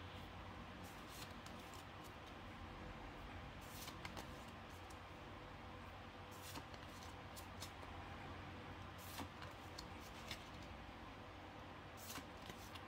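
Pokémon trading cards being slid and flipped one behind another in the hand, giving sparse soft clicks and scrapes of card stock over a quiet, steady room hum.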